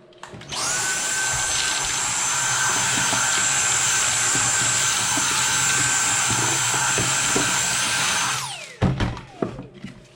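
Electric power tool cutting into the wooden box, running steadily at full speed for about eight seconds, then switched off and winding down with a falling whine.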